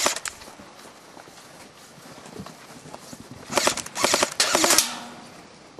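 Airsoft rifle firing on automatic: the tail of a burst right at the start, then three short bursts of rapid, evenly spaced pops in quick succession from about three and a half to five seconds in.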